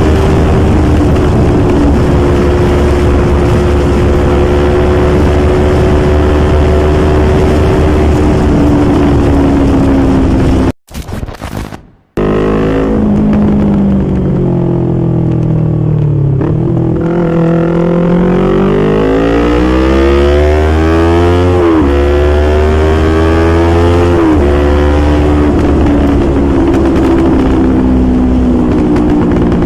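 Yamaha R25 sport bike's parallel-twin engine and exhaust under way, holding a steady note. The sound cuts out briefly about eleven seconds in. The engine then falls in pitch as the bike slows, and revs up through the gears, its pitch climbing and dropping sharply at two upshifts before settling into a steady cruise.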